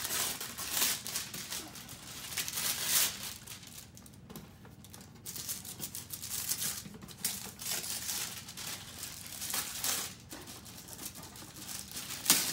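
Thin wrapping paper crinkling and rustling in irregular bursts as it is pulled off and peeled back from a shoe box, with a quieter lull about four seconds in.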